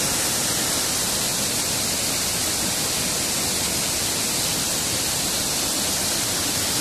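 Steady, even rush of water from heavy rain and muddy runoff, with no breaks or single events.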